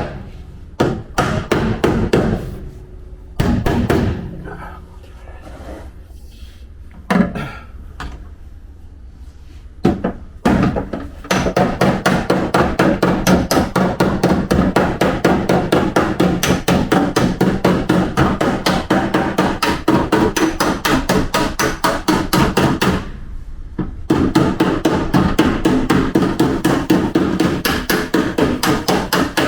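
Body-repair hammer striking a car's steel panel to straighten it. A few separate blows come first, then fast, steady hammering from about eleven seconds in, with one short pause near the end.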